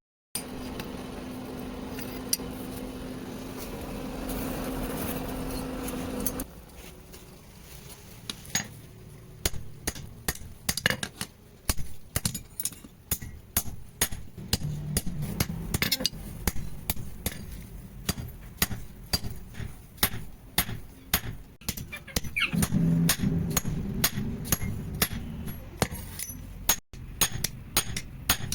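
A steady hum with a low tone for about the first six seconds. Then a blacksmith's hammer strikes metal in quick, uneven blows with bright ringing clinks, the sound of a knife blade being forged.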